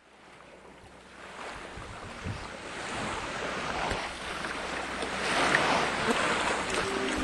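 Rushing wind and water noise, fading in from silence and growing steadily louder.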